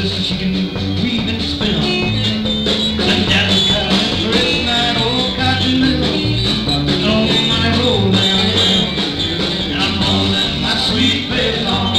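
Live country band playing an up-tempo number, with guitar over a steady bass line.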